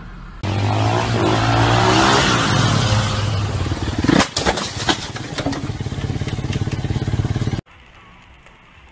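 A vehicle engine running loud and revving. About four seconds in come several sharp impacts and clatter, the sound of a crash. It cuts off suddenly near the end.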